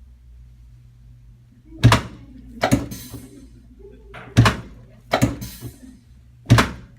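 Lumbar and pelvic drop pieces of a pneumatic chiropractic table giving way under a chiropractor's thrusts: five sharp clunks about a second or more apart.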